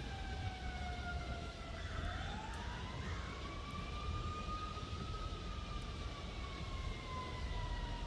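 A siren wailing in a slow rise and fall. Its pitch slides down, climbs again about two seconds in, then eases back down, over a low steady rumble.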